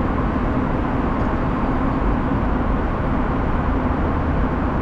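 Airliner cabin noise in flight: a steady, even, deep hum with no changes.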